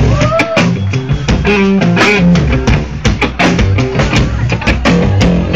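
Live rock band playing: an electric guitar riff with sliding, bending notes over a drum kit, loud.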